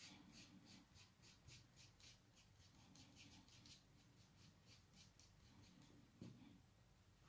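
Quick, faint strokes of a pencil scratching across pastel-covered paper, about four a second, drawing fine hair lines. Near the end there is a single soft knock.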